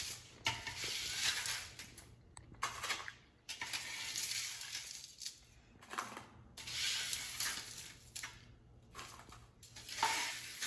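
Spatula scraping across a baking pan, lifting crisp oven-baked breaded zucchini chips, in several separate scrapes of up to about two seconds each.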